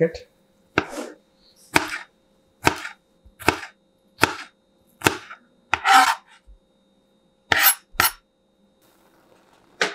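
Kitchen knife chopping vegetables on a cutting board: about nine single chops a little under a second apart, with a short pause before two quicker chops near the end.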